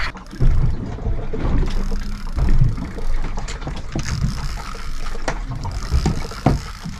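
Wind and water noise aboard a small fishing boat, with scattered knocks.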